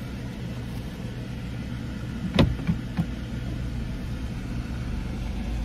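Car engine idling, heard from inside the cabin as a steady low hum, with one sharp click about two seconds in and two lighter clicks just after it.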